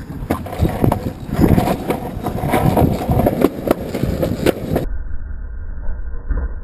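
Skateboard wheels rolling over pavement, with frequent sharp clicks and knocks from the board hitting cracks and bumps. About two-thirds of the way in, the sound turns muffled and only a low rumble is left.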